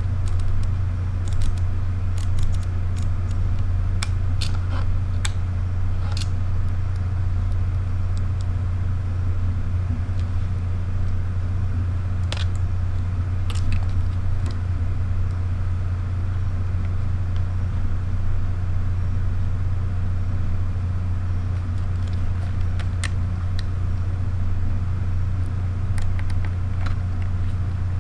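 Scattered sharp clicks of camera dials and buttons being worked by hand, in clusters near the start, around the middle and near the end, over a steady low hum.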